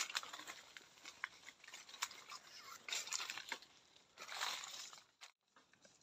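Dry rustling and crackling with scattered sharp clicks, in short bursts. It cuts off abruptly about five seconds in.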